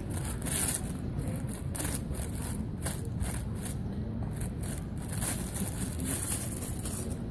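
A paper muffin wrapper crinkling and rustling in quick, irregular crackles as a fox squirrel tugs at it with its teeth and drags it off.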